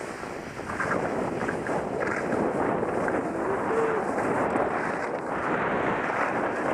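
Steady rushing noise of sliding down a groomed ski slope with a helmet-mounted camera: wind over the camera and the slide over packed snow. It grows louder about a second in.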